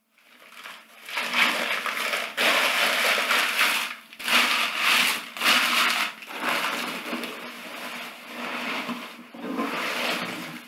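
Crumpled packing paper crinkling and rustling as hands dig through a cardboard shipping box, in several surges with short breaks between them.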